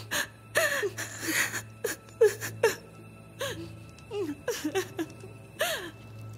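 A woman sobbing: a string of short, high whimpering cries and gasping breaths, over soft background music.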